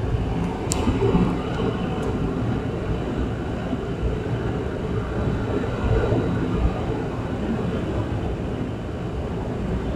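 ATR 72 turboprop engine and propeller noise heard inside the passenger cabin: a steady rumble as the airliner taxis on low power.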